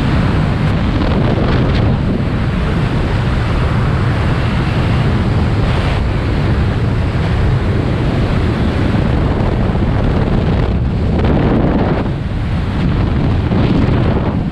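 Loud, steady rush of air buffeting the camera's microphone, the wind roar of a skydiver in freefall. It eases briefly about eleven and twelve seconds in.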